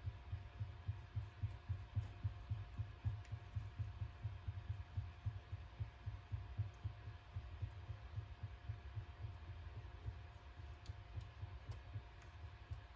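Soft low thuds, several a second, from a silicone-tipped brush dabbing and rubbing a paper napkin down onto a resin mold, knocking through the table. A faint steady hum lies underneath.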